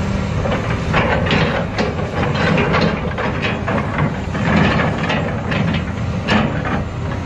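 Hitachi crawler excavator with a grapple working: its diesel engine runs steadily under irregular metallic rattling and clanking.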